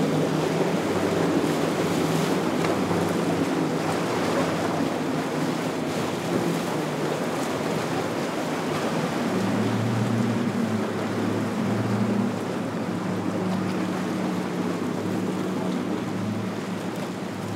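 Steady rush of surf and wind at an ocean inlet, with the low drone of boat engines running that becomes clearer about halfway through.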